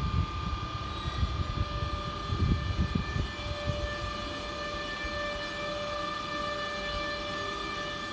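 Class 185 electric locomotive starting a heavy freight train: a steady electric whine from its traction equipment, several tones held at constant pitch, with a lower tone joining about three and a half seconds in. Under it a low rumble surges unevenly during the first three seconds.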